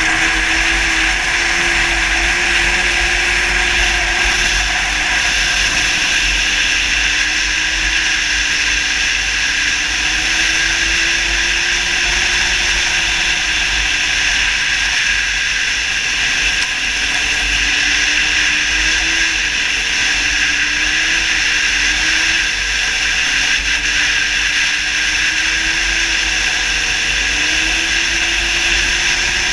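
2007 Yamaha Attak snowmobile's four-stroke four-cylinder engine running hard at speed. Its note rises and falls slightly as the throttle and trail change, over a steady rush of wind and track noise.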